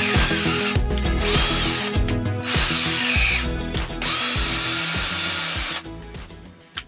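Power drill running in several short bursts, its motor whine rising as each burst starts and then holding steady, over background music.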